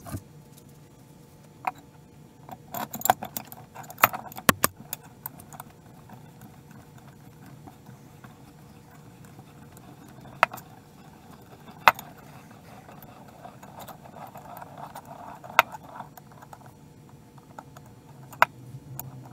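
Metal clinks and sharp knocks from hand-reassembling a cast-iron bench vise: its screw and sliding bar handle being fitted and moved. The knocks come in a quick cluster a few seconds in, then singly every few seconds.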